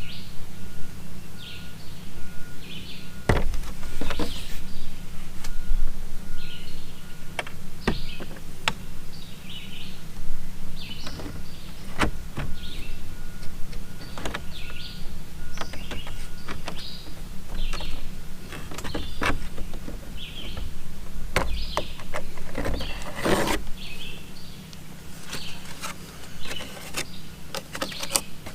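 Small tools and RC truck parts clicking and knocking on a workbench, with a longer scraping burst about 23 seconds in. Birds chirp over a steady low hum.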